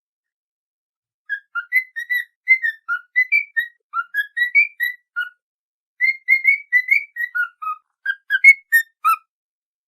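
A whistled tune of many quick, short notes hopping up and down in pitch, with a brief pause midway. It is a training whistle meant for a cockatiel to copy.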